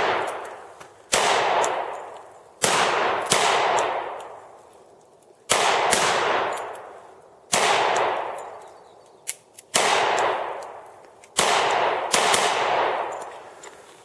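Pistol shots, about nine at uneven intervals of roughly one to two seconds, each sharp crack followed by a long echo that dies away over a second or two.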